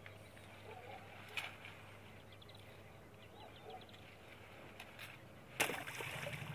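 Faint bird calls over quiet marsh ambience, then a sudden splash about five and a half seconds in as a duck decoy is thrown into the water.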